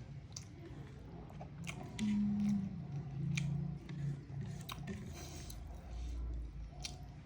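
Close-miked chewing of rice, dal and mutton curry, with wet mouth clicks and lip smacks scattered throughout. A short low hum comes about two seconds in.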